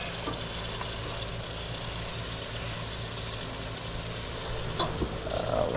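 Steaks and bratwurst sizzling on a gas grill, a steady hiss, with a single light click near the end.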